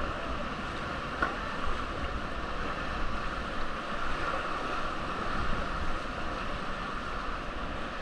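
Steady rushing of the Trishuli River's water around a raft, an even roar of moving water.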